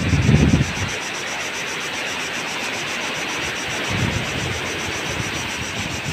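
Surf breaking and washing up the beach, a steady hiss, with gusts of wind rumbling on the microphone at the start and again from about four seconds in.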